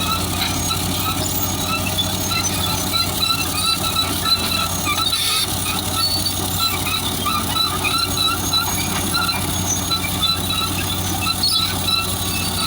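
Caterpillar D8 bulldozer's diesel engine running steadily under load, with its steel tracks giving a quick, repeating high squeak.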